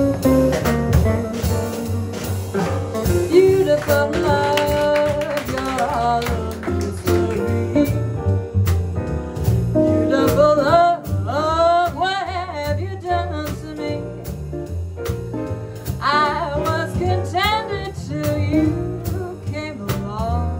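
Live jazz combo of archtop electric guitar, piano, upright bass and drums playing. From about halfway through, a woman's voice sings wordless scat lines over the band.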